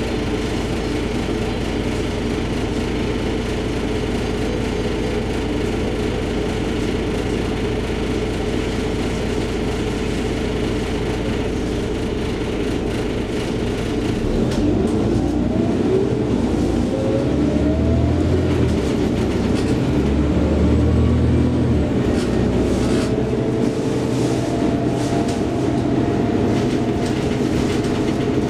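Scania OmniCity city bus heard from inside the cabin. The diesel engine idles steadily at first; about halfway through the bus pulls away, and the engine rumble grows louder under a rising whine as it accelerates.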